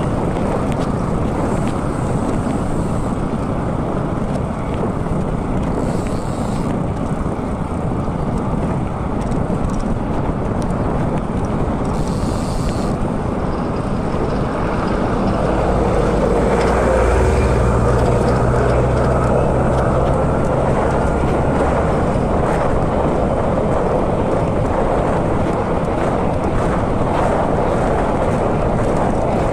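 Steady rushing wind and road noise from riding a mountain bike along a road. A motor vehicle passes a little past halfway, its low engine hum lasting about six seconds.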